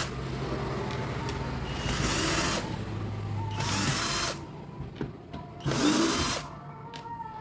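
Electric screwdriver running in three short bursts about two seconds apart, backing out the screws that hold a photocopier's button panel.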